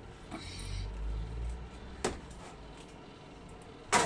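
Oven rack and baking tray being handled with an oven mitt, the oven door open: a light click about two seconds in, then a sharper knock near the end.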